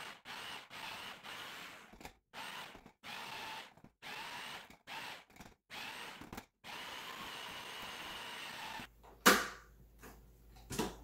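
A 12-cup food processor pulsed over and over, its motor whining in short bursts with brief gaps and a final longer run of about two seconds, chopping a thick mix of juicer pulp and seeds. Near the end come two sharp knocks as the machine is handled.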